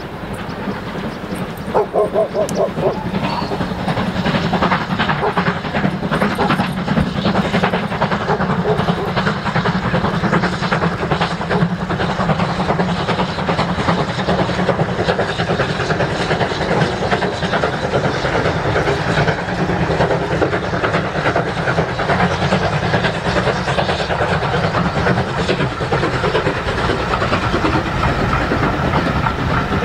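Two steam locomotives double-heading a passenger train, BR Standard 9F 2-10-0 No. 92134 and GWR King class 4-6-0 No. 6023 King Edward II, working past with a dense chatter of exhaust and hissing steam, followed by the rattle of the coaches on the rails. The sound builds over the first few seconds as the train comes near, then holds steady.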